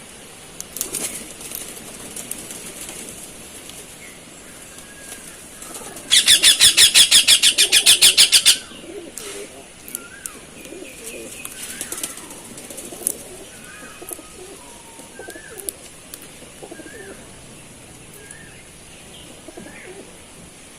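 Cockatiel's wings flapping rapidly for about two and a half seconds, the loudest sound, starting about six seconds in. Short chirps and whistles and softer low calls come and go through the rest.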